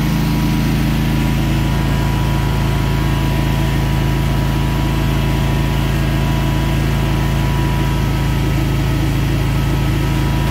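Engine of a 15 kVA single-phase standby generator set running steadily as a continuous low hum. It is carrying the load during a simulated mains power outage.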